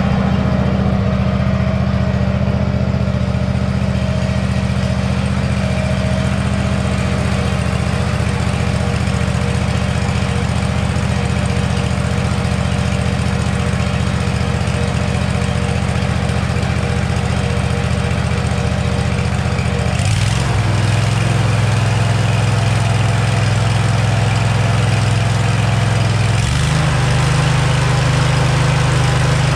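Zero-turn riding mower's engine running steadily, its note changing in a step about two-thirds of the way through and again near the end.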